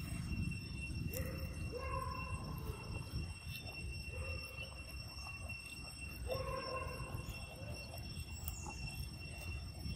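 A steady high insect trill, typical of crickets at night, over a low rumble of handling noise. A few short pitched animal calls come about a second in, around four seconds in, and again past the middle.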